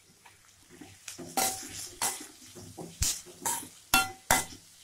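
A spoon stirring onions and tomatoes in a metal pan, knocking against the pan about half a dozen times with short metallic rings, over a faint sizzle of the sauté.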